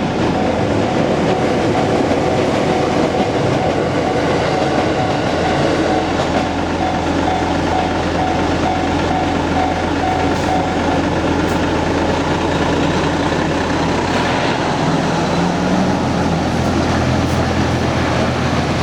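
A Tsurumi Line electric train running past a level crossing, its running noise steady and loud. The crossing's warning bell rings in even, repeating strokes until about eleven seconds in, then stops.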